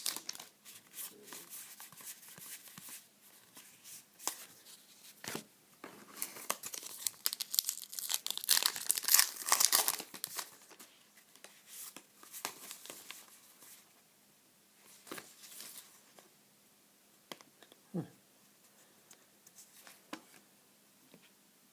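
Trading-card pack wrappers being torn open and crinkled, with the cards handled and sorted. The crinkling is heaviest from about six to ten seconds in, then thins to scattered light clicks and taps.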